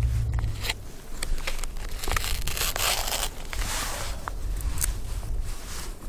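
Rustling, crinkling and tearing of packaging being handled, with scattered sharp clicks, loudest from about two to four and a half seconds in: cup-ramen wrappings and lid being opened.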